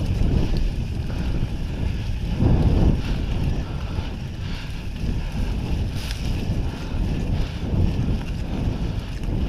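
Wind buffeting the microphone of an action camera on a moving mountain bike, with a steady rumble from riding over a dirt forest track. It swells and eases, with a faint click about six seconds in.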